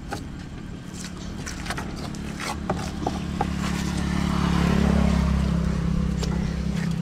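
A motor vehicle's engine passing close by, a steady low hum that swells to its loudest about five seconds in and then eases, with a few scattered sharp clicks and knocks over it.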